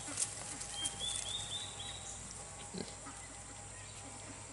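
Two-week-old Kunekune piglets grunting softly, a few short grunts while they root around in the grass.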